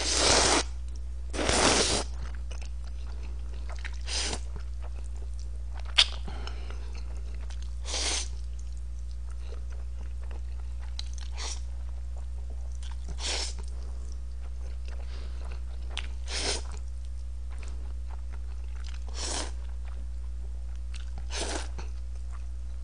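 Close-miked eating of jjajangmyeon (black bean sauce noodles) with chopsticks: a noisy slurp every two to three seconds, with chewing in between, over a steady low hum. A sharp click comes about six seconds in.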